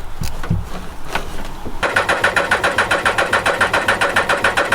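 A few knocks, then a ratchet clicking rapidly and evenly, about a dozen clicks a second, for roughly three seconds.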